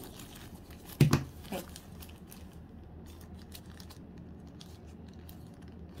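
Small plastic wrapper crinkling and rustling as fingers work at it to get a USB-C cable out, with one louder rustle about a second in and then faint scattered crinkles.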